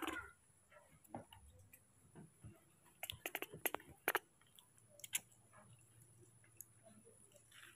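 Baby monkey sucking milk from a feeding bottle: faint wet clicks and smacks in small clusters, the loudest run about three to four seconds in and another about five seconds in.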